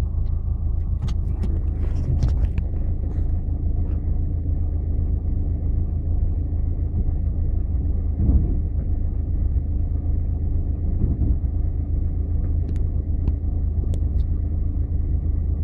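Four-wheel-drive vehicle's engine running steadily at low revs, heard from inside the cab as it crawls along a rocky trail, with a few light clicks and knocks about one to two seconds in.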